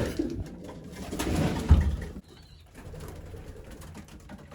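Racing pigeons cooing in their loft. A stretch of noise ends in a sharp thump a little under two seconds in, followed by quieter scattered clicks.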